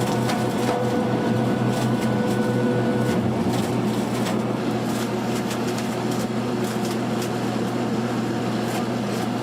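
Machinery running steadily: a constant hum with many short clicks and rattles, and a higher whine that stops about three seconds in.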